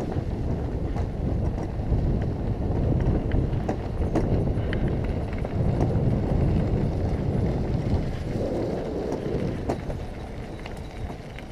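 Riding noise from a bicycle on a dirt road: a loud, steady low rumble of wind and tyres on the camera microphone, with scattered clicks and rattles from the bike.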